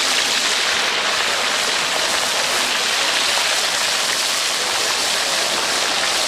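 A whole fish deep-frying in a steel wok of hot oil: a steady sizzle of bubbling oil.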